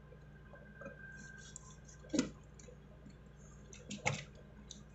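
Faint handling noises of a wire being worked into a contactor's screw terminal: two light plastic clicks, about two seconds in and again near the end, with a few softer ticks between.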